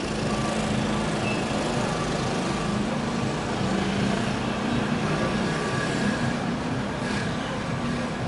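City street traffic: a steady, even din of passing vehicles with a low engine hum.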